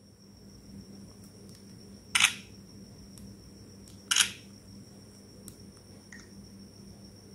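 Two sharp clicks about two seconds apart as a smartphone is turned over in the hands, over a faint steady hum and high-pitched whine.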